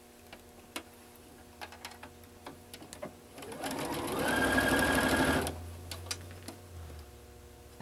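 Domestic electric sewing machine stitching a seam in pieced quilt blocks: a short run of about two seconds, starting a little past the middle, that speeds up and then holds a steady pitch before stopping. Before it, a few light clicks of fabric being handled and positioned under the presser foot.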